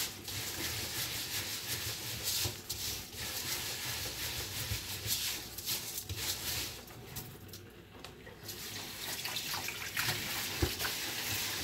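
Rice being washed by hand in water: irregular swishing and sloshing of grains and water, dipping quieter for a moment about eight seconds in.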